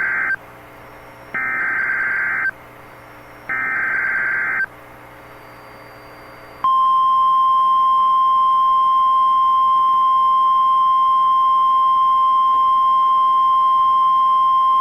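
Emergency Alert System SAME header for a new tornado warning: the end of one digital data burst, then two more bursts about a second long, each a second apart. After a short pause, the steady single-pitch warning alarm tone of NOAA Weather Radio starts about seven seconds in and holds.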